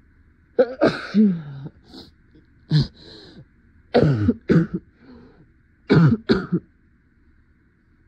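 A woman coughing from a cold in several fits: a longer throaty fit about half a second in, a single cough, then two quick runs of two or three coughs near the middle and toward the end, with short sniffs between.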